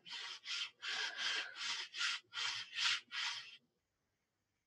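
Rhythmic rubbing strokes as the water-soaked, laser-engraved leather is wiped down to clear the laser soot: about nine short, scratchy wipes, then they stop about three and a half seconds in.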